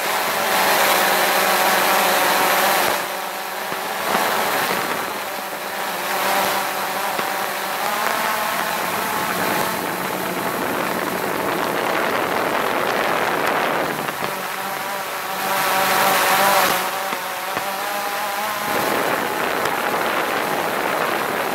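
Quadcopter drone's electric motors and propellers whining, the pitch drifting up and down as the throttle changes, with louder surges at the start and again about three quarters of the way through.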